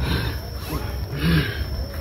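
Two faint, short, low growls from a man, about half a second apart, over a steady low rumble and a thin steady high tone.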